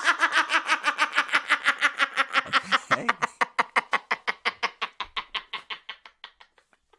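A woman laughing hard in a long, unbroken fit, about six quick bursts of laughter a second, loud at first and fading out over the last couple of seconds.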